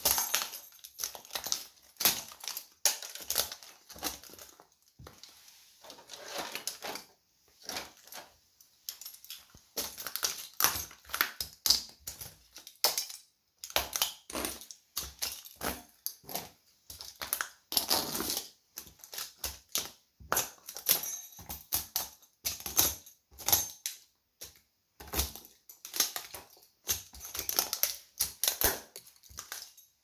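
Plastic toy train pieces cracking and crunching under the soles of Nike Air Force 1 sneakers as they stamp and grind on them. Many sharp cracks come in irregular clusters with short pauses between them.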